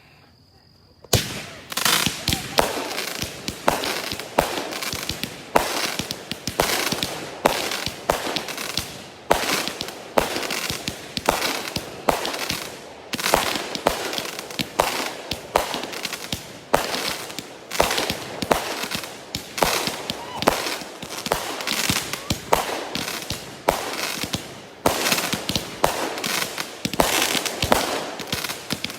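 Fireworks going off: a quiet first second, then a dense run of sharp bangs and crackles, several a second, without a break.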